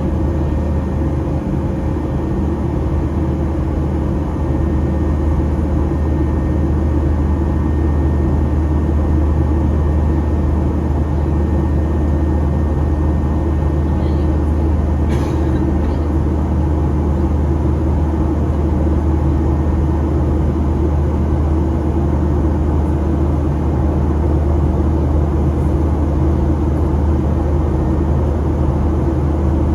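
Steady low drone inside a Boeing 737-800 cabin, the hum of the aircraft's air and engine systems, growing slightly louder about four seconds in. A few faint clicks come about halfway through.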